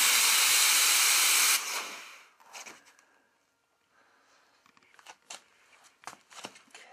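Steady, loud hiss of compressed air blowing from an air hose, cutting off about a second and a half in and dying away; afterwards only a few faint taps.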